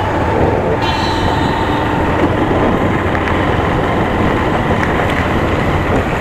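Motorcycle riding in city traffic: steady engine and road noise from the rider's position.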